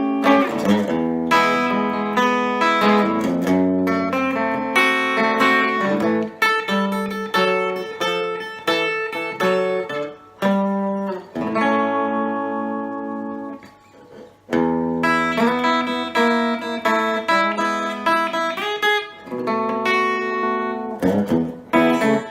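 Epiphone Casino hollow-body electric guitar with P-90 pickups, played through a Vox AC15C1X valve amp on its Top Boost channel: a run of strummed chords and picked notes. About halfway through, one chord is left to ring and fade for a couple of seconds before the playing starts again.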